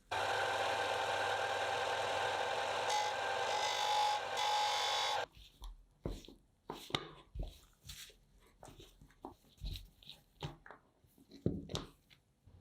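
A small motor-driven tool runs steadily for about five seconds and cuts off suddenly, followed by scattered knocks and clicks of parts being handled.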